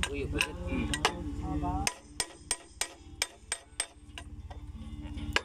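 Hammer blows on steel: a quick run of six sharp strikes, about three a second, with a few scattered knocks before them and one more near the end. For the first two seconds an engine runs underneath with a low steady throb, which drops away suddenly.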